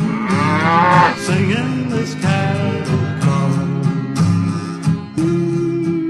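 Country music with guitar and a steady bass line, and a cow mooing once over it near the start.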